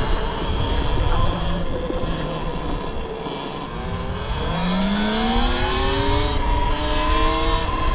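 Talaria XXX electric dirt bike's motor whining as it picks up speed from about halfway through, its pitch rising and then holding, over a steady low rumble of riding.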